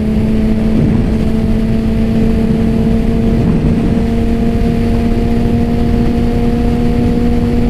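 BMW S1000RR's inline-four engine running at a steady, unchanging pitch while cruising, under heavy wind rush.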